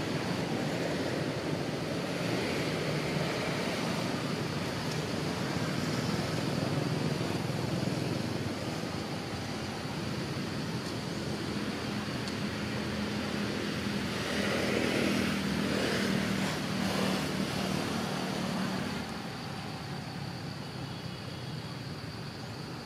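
Steady outdoor traffic noise with a motor vehicle's engine passing, loudest about two-thirds of the way through, then easing off near the end.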